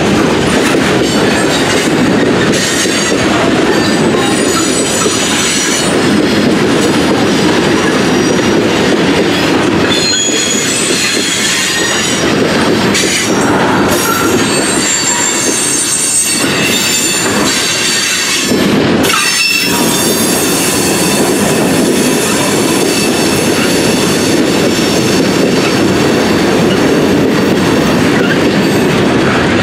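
Freight train cars rolling through a grade crossing: a steady rumble and clatter of steel wheels on the rails, with high, thin wheel squeal coming and going.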